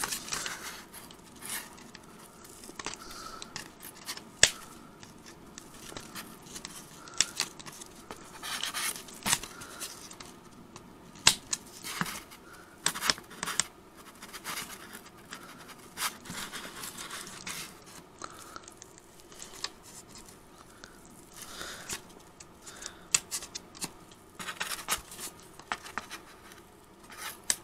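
Pliers bending over the legs of staples pushed through thick fabric: irregular sharp metal clicks amid fabric rustling and scraping.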